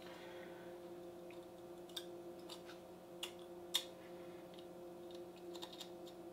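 Faint scattered ticks and clicks as a hot knife's tip slices thin plastic strings off a 3D print: a few single ticks, the loudest just before the middle, then a small cluster near the end. A low steady hum sits underneath.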